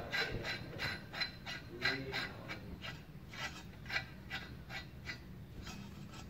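Metal clicking from a threaded steel pipe sleeve being twisted by hand on a homemade sprinkler's swivel joint: a run of quick ratchet-like clicks, several a second, that thin out and fade toward the end.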